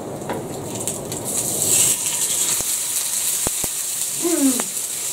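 Haggis frying in a hot pan: a sizzling hiss that swells up about a second and a half in and carries on, with a few faint clicks. A brief falling hum-like sound comes near the end.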